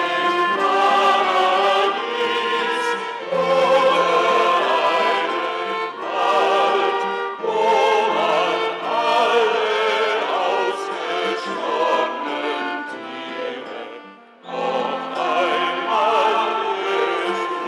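Small mixed-voice vocal ensemble singing a song in parts, the voices held with vibrato; the phrase breaks off briefly about two-thirds of the way through and the singing starts again.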